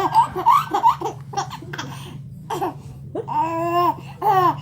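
A person laughing hard: a quick run of high-pitched "ha-ha-ha" bursts, then a long drawn-out high laugh in the middle and more bursts near the end.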